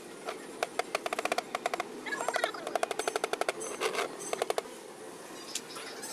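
Quick runs of sharp clicks, about ten a second, starting and stopping several times over a steady workshop hum.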